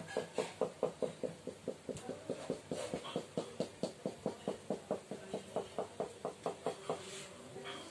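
Marker pen on a whiteboard drawing a quick run of short tick strokes, about five a second, each a brief squeak. The strokes stop near the end.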